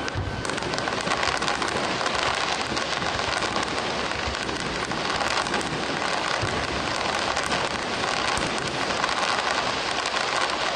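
Fireworks display with crackling shells bursting: a dense, continuous crackle of many small pops, with a low bang just after the start.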